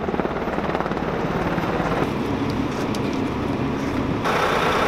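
UH-60 Black Hawk helicopter flying overhead, its rotor beating in a steady rhythm. About two seconds in, the sound cuts to the steady low hum of an idling coach bus engine. Just after four seconds it steps up to louder, brighter outdoor noise.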